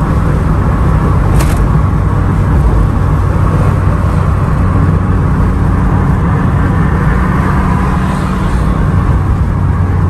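Mk1 Volkswagen Scirocco heard from inside the cabin while cruising at a steady speed: a steady engine drone with road and wind noise. A brief faint click comes about a second and a half in.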